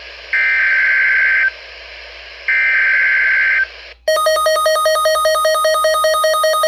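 Emergency Alert System interruption: two roughly one-second bursts of screechy digital header tones a second apart, then about four seconds in a loud, rapidly pulsing alert attention tone begins.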